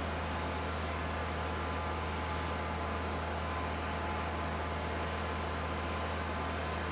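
Steady low hum with a faint hiss above it, unchanging throughout: the background drone of machinery or electrical plant.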